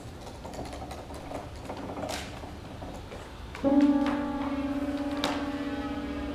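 Quiet room sounds with a few faint clicks, then about three and a half seconds in a low held musical note with overtones starts suddenly and sustains steadily, wavering slightly.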